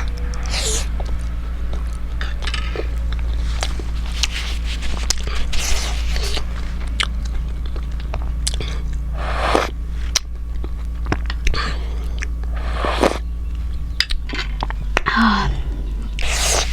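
Close-miked chewing and lip smacking of steamed momo dumplings, with many small wet mouth clicks and a few louder smacks spaced a few seconds apart, over a steady low hum.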